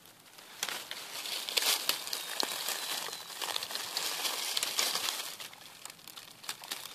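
Dry fallen leaves crinkling and crackling in irregular clicks as a hand reaches through the leaf litter and picks a mushroom, starting about half a second in.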